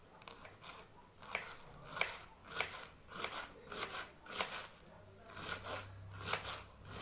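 Small kitchen knife slicing through a raw cabbage into long thin shreds: a dozen or so crisp crunching cuts, about two a second.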